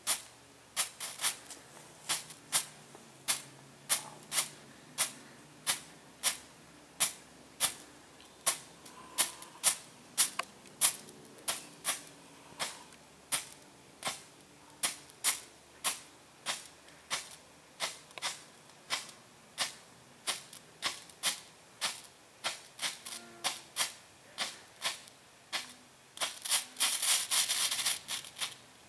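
Big's Pro Strobe XL strobe firework popping with sharp cracks about two a second, unevenly spaced, running into a burst of rapid crackling near the end before it stops.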